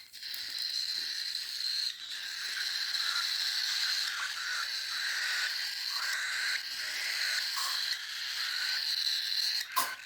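Cockatiel chicks' raspy food-begging calls, a continuous rapid wheezing chatter, with one sharp click near the end.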